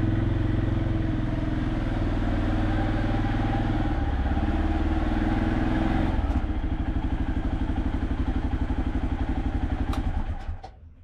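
ATV engine running steadily, then dropping about six seconds in to a slower, evenly pulsing idle before dying away near the end.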